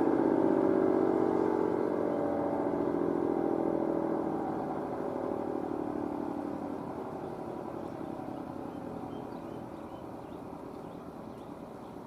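ACA Allertor 125 electromechanical tornado siren winding down at the end of its Alert signal, its pitch falling and its sound fading steadily away.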